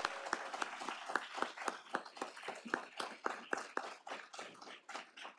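Audience applause tapering off to a few scattered claps.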